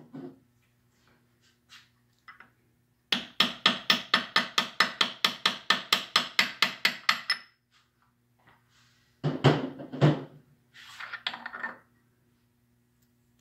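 A copper-headed hammer striking a brass punch against the steel crank gear on a Triumph TR6 crankshaft nose: a quick, even run of about two dozen ringing taps, about five or six a second. A couple of heavier metal knocks and a short clatter follow, as the gear is worked on the shaft.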